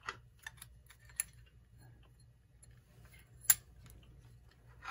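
Scattered light clicks and taps of a clock's glass and metal rim being handled and lifted off, with one sharper click about three and a half seconds in, over a faint steady low hum.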